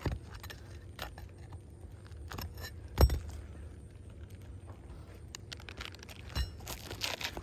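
Hand work on old asphalt shingles: scattered clicks, metallic clinks and light scraping, with one sharp knock about three seconds in and a cluster of clicks near the end.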